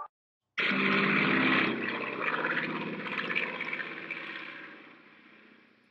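Propeller airplane engine sound effect, starting suddenly about half a second in: a rushing noise over a low engine drone that fades away gradually toward the end.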